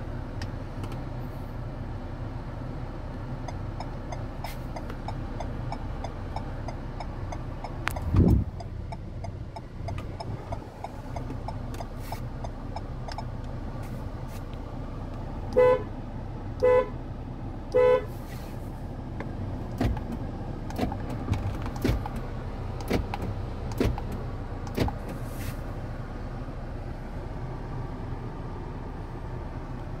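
A Renault QM6 (Koleos) car horn sounds three short beeps about halfway through, set off by the button on a digital gear knob, over the steady low hum of the engine idling. There is a single loud thump about a quarter of the way in, and scattered light clicks in the second half.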